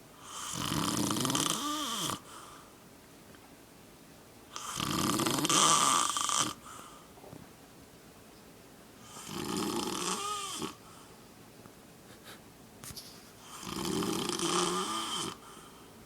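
A man snoring in his sleep: four long snores, one about every four and a half seconds, with quiet breathing gaps between them.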